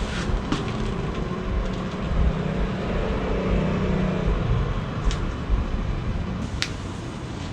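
A few sharp clicks of joints cracking during chiropractic adjustments, over a steady low rumble. The clearest two cracks come about five and six and a half seconds in.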